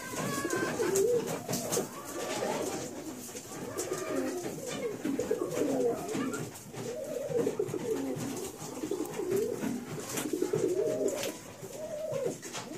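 Domestic pigeon cooing over and over in low, rising-and-falling coos: a nesting hen calling to her young squabs.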